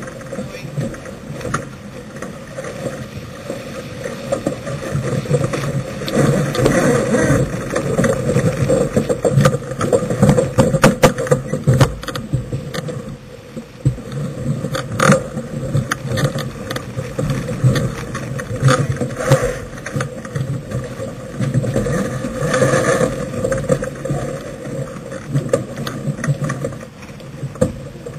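Wind and rushing water aboard a sailboat heeled over under sail, a continuous loud rush with wind buffeting the microphone. Irregular clicks and knocks cut through it, thickest in the middle and once sharply about fifteen seconds in.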